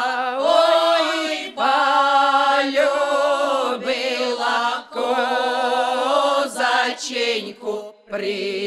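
Women's folk ensemble singing unaccompanied, drawing out long held, wavering vowels between the words of a traditional Cossack lyrical song. There are short breaks for breath roughly every three seconds.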